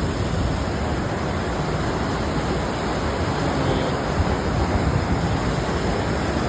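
Steady rush of river water pouring through a narrow rock gorge below.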